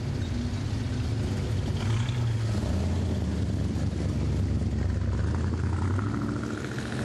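Classic hot rods and custom cars rolling slowly past in a line, their engines running with a deep, low exhaust note. A faint rising whine comes in near the end as another car moves up.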